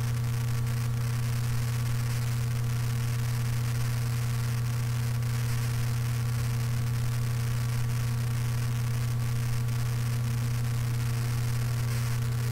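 Steady low electrical hum with hiss from a microphone recording chain, with noise suppression switched off, and a few faint clicks of crackle.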